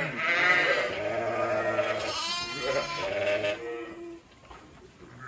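Sheep and lambs bleating, several calls overlapping, dying down about four seconds in.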